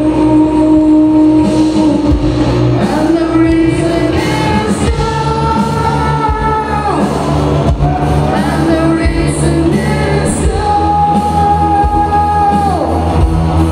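Live rock band playing with a lead singer over acoustic and electric guitars, bass and drums. Long held notes slide down about halfway through and again near the end.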